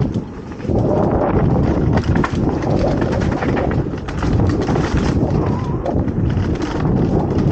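Mountain bike riding down a dirt trail: tyres rumbling over the bumpy ground while the bike rattles and knocks over bumps. It gets louder a little under a second in.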